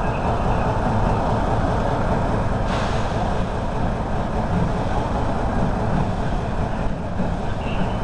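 Railway turntable turning with an electric locomotive on its bridge: a steady low rumble.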